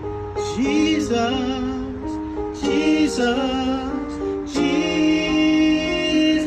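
A man singing three long phrases with vibrato over an electronic keyboard playing sustained piano-like chords, the last phrase held longest.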